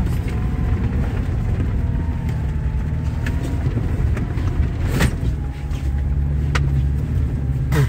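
SUV engine running while driving, a steady low rumble with a sharp knock about five seconds in; just after, a deeper, stronger steady engine hum sets in.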